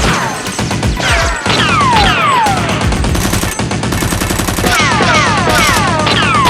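Rapid gunfire sound effects in continuous volleys, mixed with repeated falling whistling tones, over background music.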